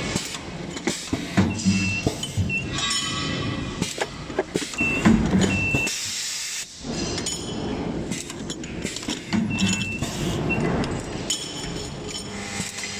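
Automatic nut spot welding machine cycling: air hisses, sharp clicks and clinks of nuts and steel brackets, with a short high tone recurring every few seconds.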